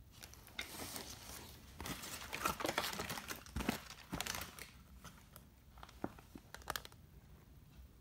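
Plastic and cardboard packaging crinkling and rustling as it is handled, densest through the first half, then a few separate clicks and taps.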